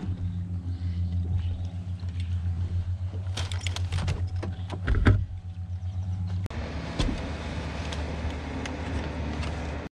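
A steady low motor hum, with rattling clicks and knocks from handling the fish, net and gear on the kayak a few seconds in, the loudest a heavy thump about five seconds in. Past the middle the hum drops and a steady hiss takes over.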